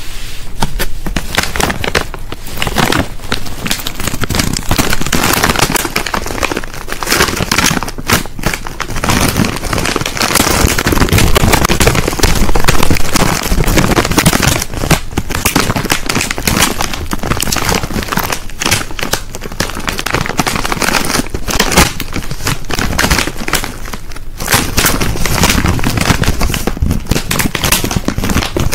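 Crisp packet being crinkled and crackled close to the microphone: a loud, dense crackle that keeps going with a few brief pauses.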